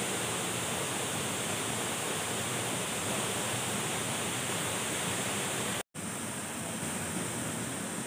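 Waterfall pouring down a rock face into a pool, a steady rush of water. The sound cuts out for an instant about six seconds in, then a similar steady rush resumes, a little less hissy.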